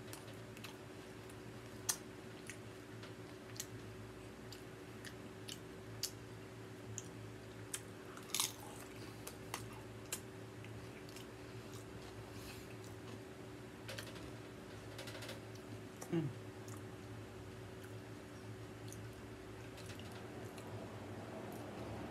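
Close-miked chewing of tortilla-chip nachos, with scattered sharp crunches as chips are bitten, over a steady low hum.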